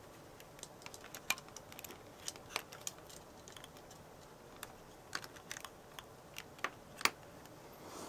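Irregular small clicks and taps of metal crocodile clips being snapped onto the battery contacts inside a Lego Technic Hub's plastic battery compartment, the sharpest click about seven seconds in.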